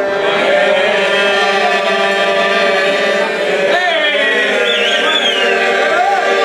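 A group of men singing a folk song together in chorus, accompanied by an accordion holding steady chords.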